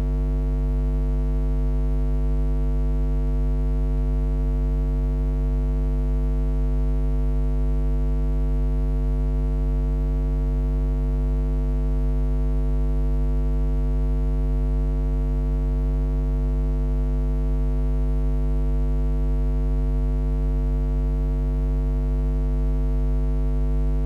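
Loud, steady electrical mains hum: a low buzz with a stack of overtones, unchanging and without a break.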